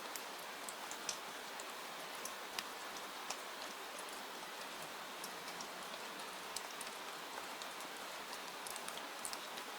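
Steady rain falling, an even hiss with many small, irregular sharp ticks scattered through it.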